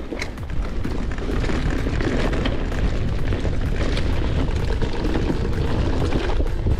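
Mountain bike riding fast down a dirt singletrack: a steady wind rumble on the microphone, with tyre noise and scattered clicks and rattles from the bike over the ground.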